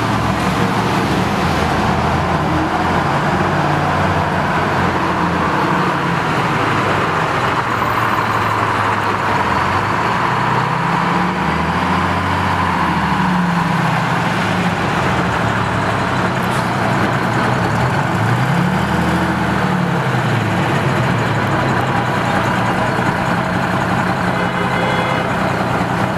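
Engine of a vintage GM "Old Look" transit bus running as the bus pulls away and drives along the street. Its pitch rises and falls twice, about halfway through and again about three-quarters of the way in, over a steady hiss of street traffic.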